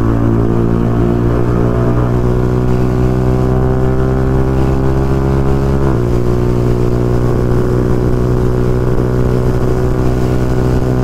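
Yamaha R15 V4's 155 cc single-cylinder engine running through an aftermarket R1M-style slip-on exhaust under acceleration at highway speed. Its pitch climbs slowly, drops suddenly at an upshift about six seconds in, then climbs again.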